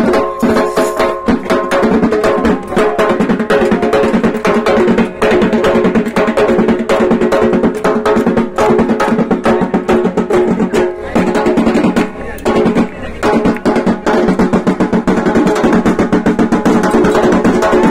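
Loud music with fast, dense drumming over held melodic notes.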